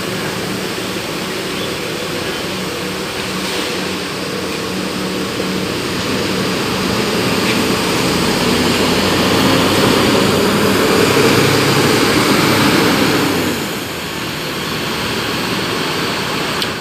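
Diesel engine of a large coach bus driving slowly through a garage and past close by. It gets louder as the bus comes alongside, about halfway through, then drops off suddenly as it moves away.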